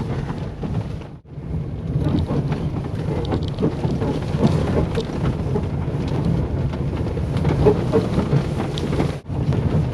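Renault Kangoo driven over rough ground: the tyres and suspension rumble and knock, with short squeaks from its original rubber stabilizer-bar bushings. The sound breaks off briefly about a second in and again near the end.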